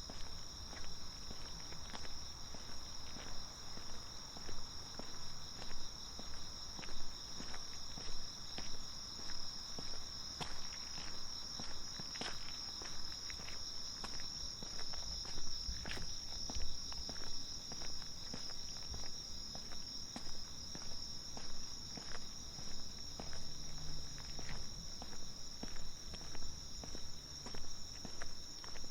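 A steady, high-pitched chorus of night insects chirring, with footsteps at an even walking pace over it.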